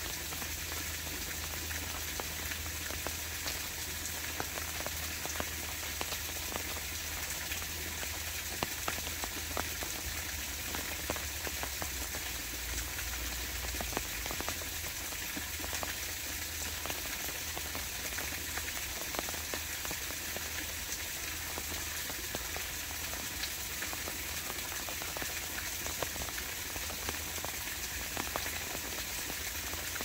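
Steady rain, a dense patter of many small drop hits.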